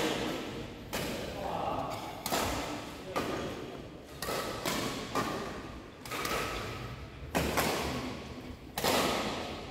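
Badminton racquets hitting a shuttlecock in a rally: sharp hits about once a second, each echoing around a large sports hall.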